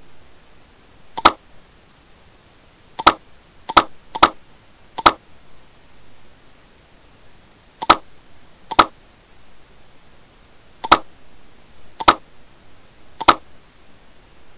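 Computer mouse clicks, ten sharp single clicks at irregular intervals, a few coming in quick pairs, over a faint steady hiss.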